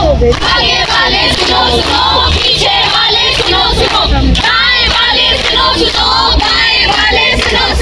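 A group of voices chanting together in unison, loud and continuous, with hand clapping.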